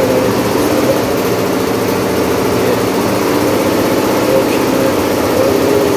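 Computerized embroidery machinery running steadily, a continuous fast mechanical chatter with a steady hum underneath.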